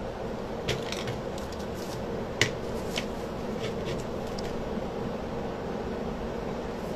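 Steady background hum with a few light clicks and taps as a paintbrush, small wax paint tins and a decorated CD panel are handled. The loudest click comes about two and a half seconds in.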